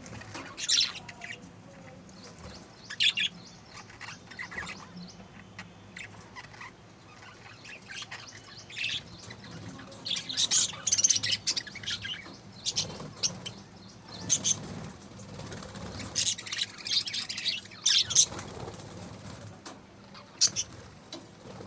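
A colony of caged lovebirds and budgerigars chirping and squawking: many short, sharp, high calls coming irregularly, busiest about halfway through and again near the end.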